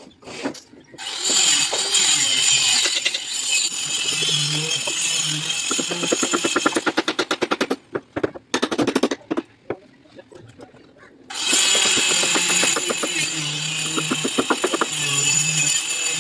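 A power tool runs loudly in two long spells on construction work, with a stretch of rapid, even hammering strokes between them and a short pause before it starts again.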